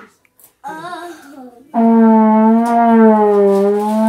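Trombone blown: a short wavering note about a second in, then a long held note whose pitch sags slightly near the end.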